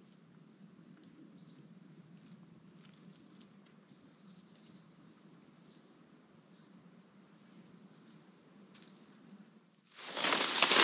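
Faint insect calling in short, high, thin trills that repeat with small gaps, over a faint low hum. About ten seconds in, loud crunching and crackling of dry leaf litter underfoot starts suddenly.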